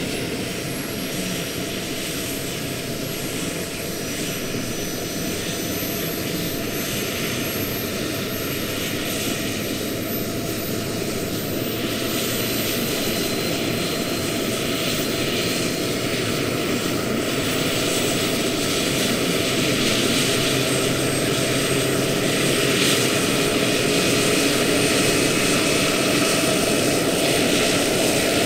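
Turbine engine and rotors of a 2 m scale model Eurocopter H145 helicopter running on the ground. A high whine rises slowly in pitch over the rotor and engine noise, and the whole sound grows gradually louder.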